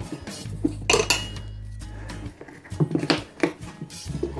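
Steel tyre levers clinking and knocking against each other and the wheel rim while a motorcycle tyre bead is worked off. One sharp clink about a second in, then a quick run of clinks near three seconds.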